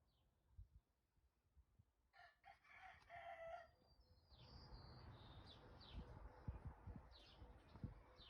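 A rooster crowing faintly once, about two seconds in, followed by a faint steady rush of noise and a few short high bird chirps.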